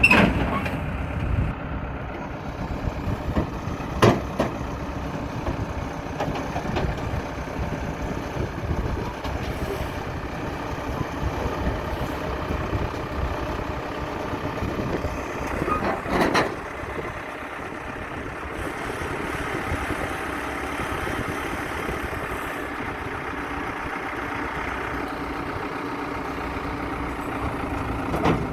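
Heavy diesel machinery running steadily, with a few sharp knocks, the clearest about 4 seconds and 16 seconds in.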